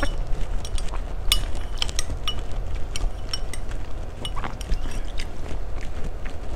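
A metal spoon clinking against a drinking glass as it scoops from a pink drink. There are repeated light clinks, some with a brief ring, over a low steady hum.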